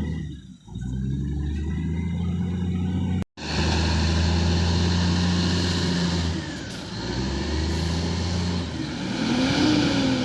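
Heavy diesel engine of a log-loading machine or logging truck running steadily. The sound cuts out abruptly for an instant about a third of the way in, then comes back louder, with a brief rise and fall in engine pitch near the end.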